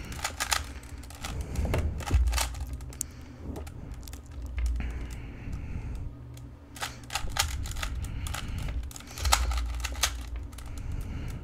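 Plastic Rubik's cube being twisted by hand: irregular quick clicks and clacks of the layers turning, coming in runs with short pauses, with a few dull bumps from handling.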